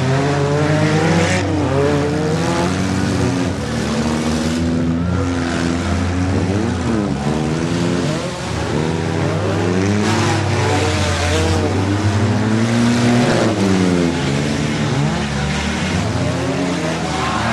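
Several demolition derby cars' engines revving at once, their pitches rising and falling as the drivers throttle up and back off, with a few sharp knocks of cars hitting each other about a second in and again around ten seconds in.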